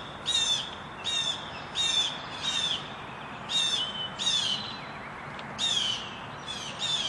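A songbird singing: a string of short, high notes, each sweeping downward, repeated about once a second with a brief pause midway.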